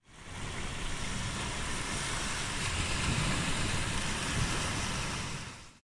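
Small waves breaking and washing up a sandy shore: a steady rushing of surf that fades in at the start and cuts out just before the end.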